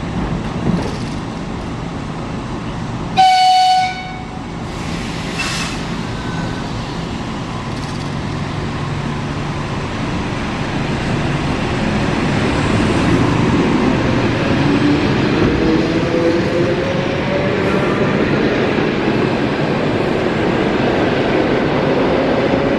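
ED4M electric multiple unit pulling out: one short horn blast about three seconds in, then the train gathers speed past the listener, its traction motors giving a whine that rises slowly in pitch as the running noise grows louder.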